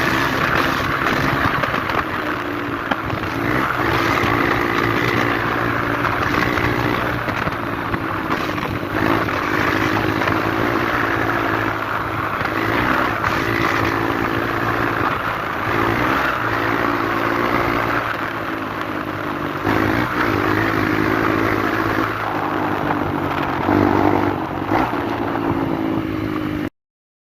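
Honda Bros 160 motorcycle's single-cylinder engine running steadily at low speed, its pitch rising and falling slightly now and then. The sound cuts off suddenly near the end.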